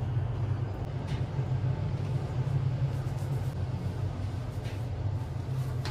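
Steady low rumble and hum of a high-speed lift car running in its shaft.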